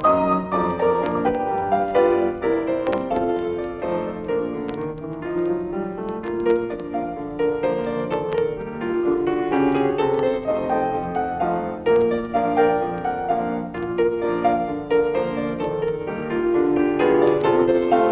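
Piano music playing a stream of notes as a soundtrack.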